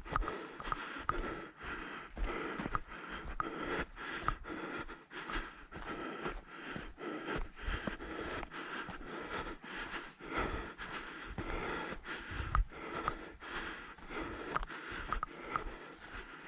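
A hiker breathing hard, panting in and out, with footsteps on the trail about two a second.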